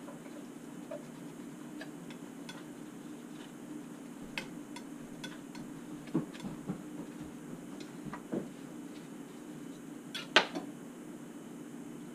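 Scattered light clicks and knocks of small objects being handled on a painting table, over a steady low hum; the loudest knock comes about ten seconds in.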